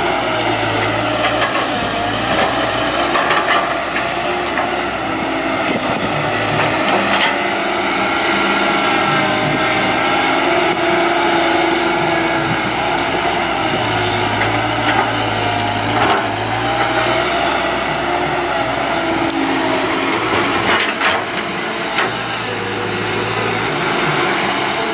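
CAT 312D hydraulic excavator running under digging load, its diesel engine and hydraulics making a steady drone whose pitch rises and falls as the machine works, with a few short knocks.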